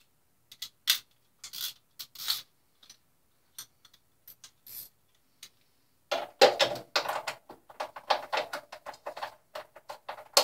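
A socket ratchet clicking in quick back-and-forth strokes from about six seconds in, loosening the mounting bolts of a Suzuki Hayabusa's stock muffler. Before it come a few scattered clinks and scrapes of tools.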